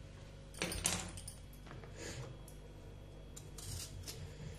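Kitchen handling sounds: a clattering knock as a raw potato is picked up from a bowl about a second in, then a few short scrapes of a hand vegetable peeler on potato skin near the end.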